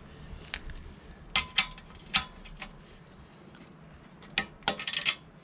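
Scattered light metallic clicks and clinks, a few with a brief ring, from hand tools and fixings being handled on the motorcycle's front fork. They come in two clusters, one between about one and a half and two and a half seconds in and one near the end.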